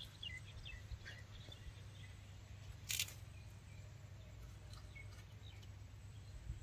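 Faint rural outdoor ambience with a low steady rumble and a few short, high bird chirps, and one sharp click about three seconds in.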